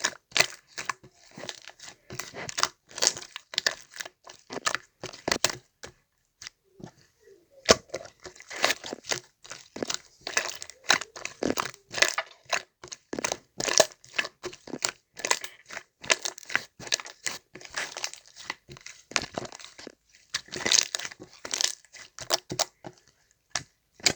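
Chocolate slime being squished and pressed by hand, giving a dense, irregular run of crackles and pops, with a short lull about six seconds in; it stops abruptly at the end.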